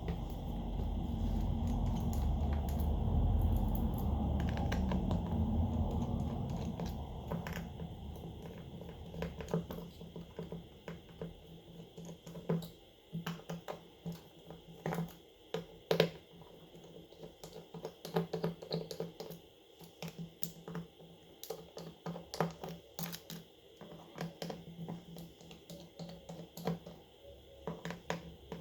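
Small tools clicking and tapping irregularly on a phone's small plastic and metal parts during disassembly. A low rushing noise fills the first several seconds and then fades.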